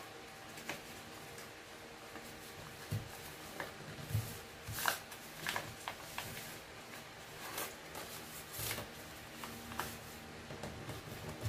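A sheet of paper being folded and creased by hand on a wooden table. Soft rustles and crinkles come with short crackles and taps, scattered irregularly.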